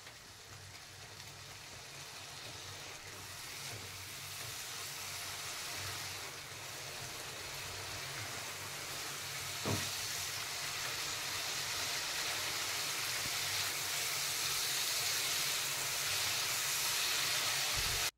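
Onion-tomato spice masala sizzling in oil in a nonstick kadhai while being stirred with a spatula. It is being fried (bhuna) with a splash of water so the spices don't burn, and the sizzle grows steadily louder. One brief knock about ten seconds in.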